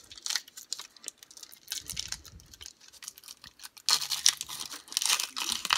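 Crinkly plastic rustling and small sharp clicks of trading cards and their packaging being handled, quiet at first and louder from about four seconds in.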